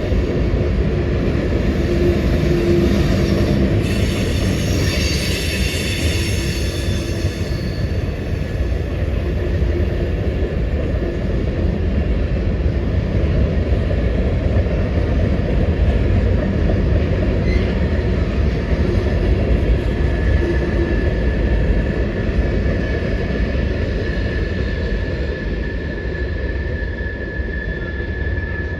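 Freight train rolling past with a steady heavy rumble of wheels on rail. A brief high wheel squeal comes about four seconds in, and a thin steady squeal starts about twenty seconds in and runs on.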